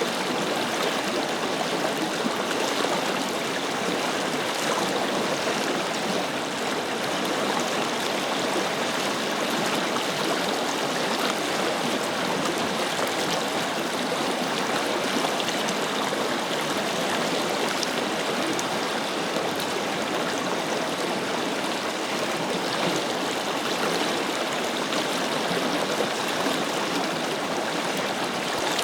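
Forest river flowing: a steady, even rush of water over stones, unchanging throughout.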